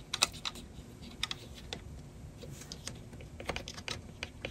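Light, irregular clicks and ticks of a disassembled 800K floppy drive mechanism, metal and plastic parts knocking together as it is handled, with a few more clicks close together near the end.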